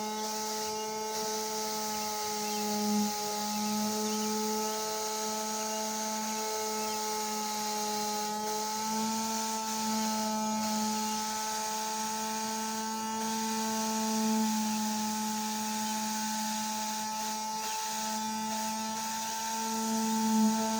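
Handheld electric power sander running steadily, a constant motor hum with a stack of higher whining overtones, as it grinds old paint off a bus's metal body.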